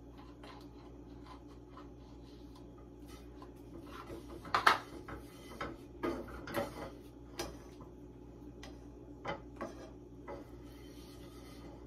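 A spatula scraping and tapping in a skillet as it stirs a butter-and-flour roux: irregular light scrapes and clicks, the loudest about five seconds in.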